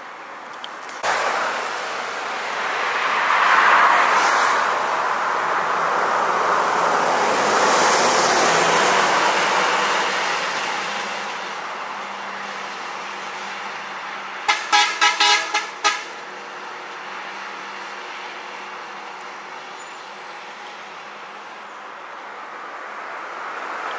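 Cars driving past on a paved road, the engine and tyre noise swelling and then fading. About halfway through, a car horn gives a quick run of short toots.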